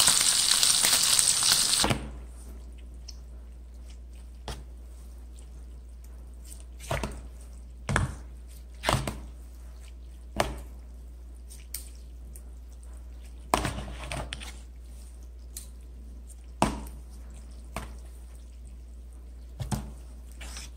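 Duck pieces sizzling in hot frying oil for about two seconds, then cut off. After that, scattered sharp clicks and taps of metal forks against an aluminium pot as noodles are twirled and eaten, over a steady low hum.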